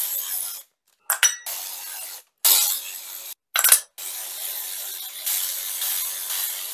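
Cordless drill with a socket extension spinning out engine oil-pan bolts. It runs in several short whirring bursts, then a longer steady run from about four seconds in, with a metal clink about a second in.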